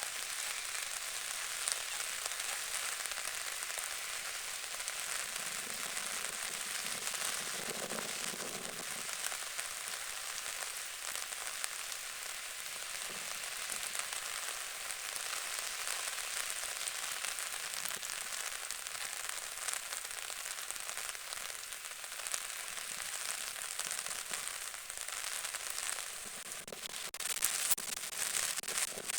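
Rain falling steadily, a dense crackling patter of drops, with a few sharper, louder pops near the end.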